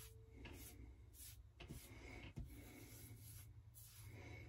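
Rockwell 6S safety razor scraping stubble off a lathered scalp in a series of short, faint strokes, with one sharp knock a little past halfway.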